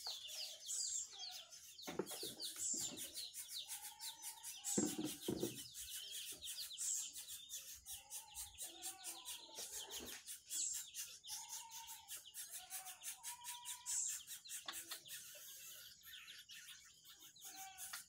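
Fowl clucking softly in short arched calls, with sharp high chirps about every two seconds over a fast high-pitched ticking.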